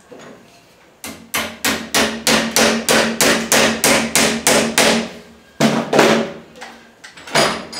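Hammer driving a 2-inch headless nail into the corner joint of a pine picture frame clamped in a bench vise: a quick run of about a dozen strikes, some three a second, then two heavier blows and one last strike near the end.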